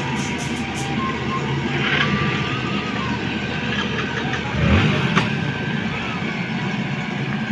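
Mahindra backhoe loader's diesel engine running steadily as the machine drives away, with a single low thump about two-thirds of the way through.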